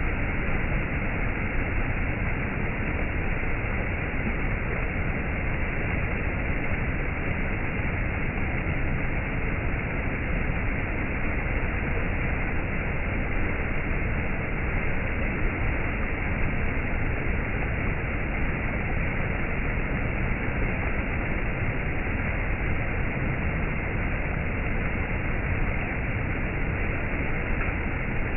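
Stream water flowing, a steady even rush with no breaks.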